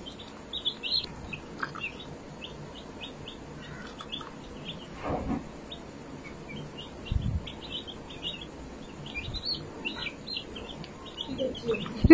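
Baby chick peeping: short, high cheeps in quick runs, with a few low thumps in between.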